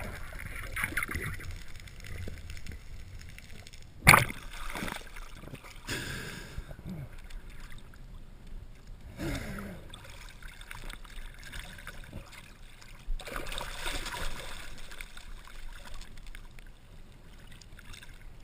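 Water sloshing and gurgling around a mask-mounted camera on a spearfisher, with one sharp knock about four seconds in.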